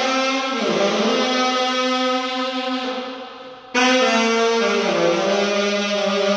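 Alto saxophone playing slow, long held notes in an ambient style. The phrase fades away about three seconds in, and a new note comes in suddenly just before four seconds and is held.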